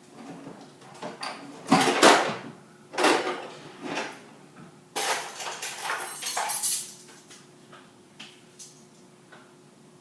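Kitchen clatter of cookware and utensils: a few knocks and clinks, then a longer scraping, rattling stretch about five seconds in.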